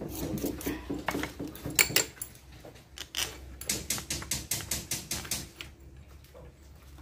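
Metal hand tool clicking and clinking against a small bolt on a starter motor as it is fitted and tightened. There is a quick, even run of clicks in the second half, over a low steady hum.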